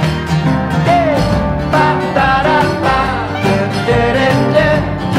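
Background music: a country-style song with a singing voice over plucked guitar-like strings and a steady beat.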